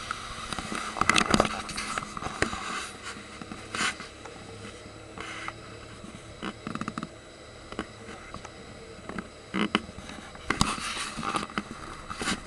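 Scattered knocks and rustling from a handheld camera being moved about.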